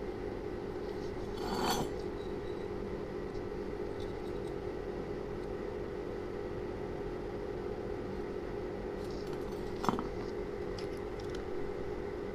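Light metallic handling sounds from a motorcycle cylinder head and a digital caliper being worked with on a concrete floor: a short scrape about a second and a half in, and a sharp clink near the end with a few faint ticks around it, over a steady background hum.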